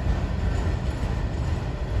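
A train passing, a steady low rumble without distinct wheel clicks.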